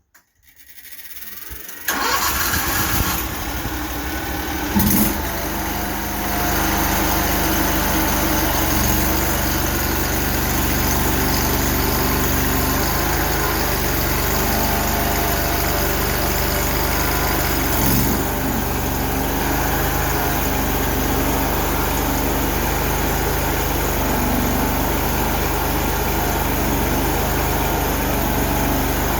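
Mini skid steer's engine starting about two seconds in, then running steadily and getting louder from about six seconds in. A couple of short knocks sound over it.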